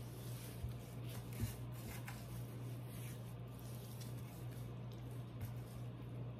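Hands handling a raw, seasoned turkey in a roasting pan: faint, soft squishing of wet skin and a few light knocks, the loudest about a second and a half in, over a steady low hum.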